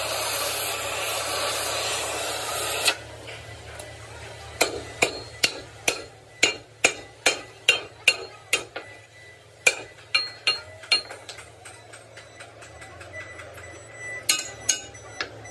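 Hammer striking steel: a run of sharp, ringing blows at about three a second, with a few more strikes near the end. Before them, a loud steady hiss cuts off suddenly about three seconds in.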